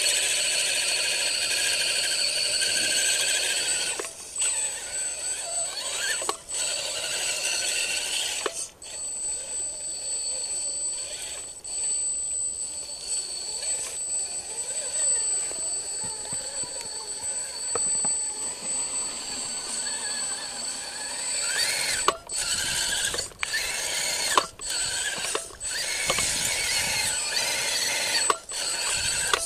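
Electric motor and gear drivetrain of a radio-controlled scale crawler truck whining as it crawls through mud, the high whine dropping out briefly several times as the throttle comes off and on.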